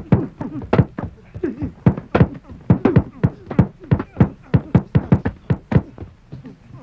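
Boxing-gym training noise: a rapid, irregular run of gloved punches thudding on heavy bags, several a second, thinning out near the end.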